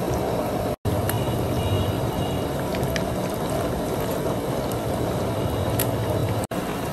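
Battered squid strips deep-frying in hot oil: a dense, steady sizzle and bubbling. The sound cuts out for an instant twice, about a second in and near the end.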